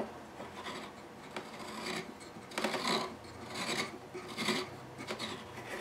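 Tapered hand reamer twisted in the pin hole in the side of a 1929 Gibson L5 archtop, its steel edges shaving the wood in a series of short rasping scrapes, roughly one a second, as the hole is opened slightly to fit the pin.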